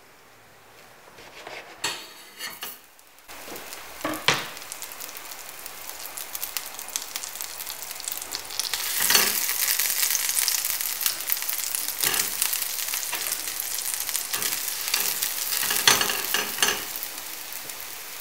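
Bread cubes sizzling in melting butter in a stainless steel frying pan, the sizzle starting suddenly about three seconds in and growing louder as more cubes go in, with several sharper flare-ups. Before it, a few crunches of a knife cutting through bread.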